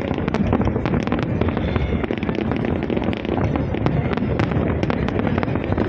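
Fireworks display: many rapid, sharp cracks and pops over a continuous low rumble of bursts.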